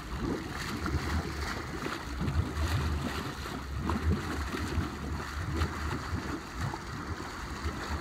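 Toyota Tundra pickup driving through water, its wheels churning and splashing, with the truck's engine running as a low rumble underneath.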